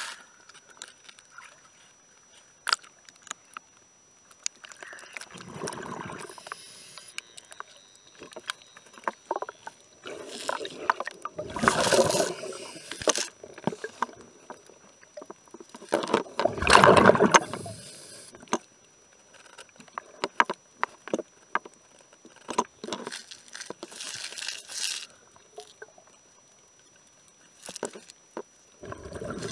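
Underwater sound of a scuba diver breathing: bubbly bursts of exhaled air every five or six seconds, with scattered sharp clicks in between.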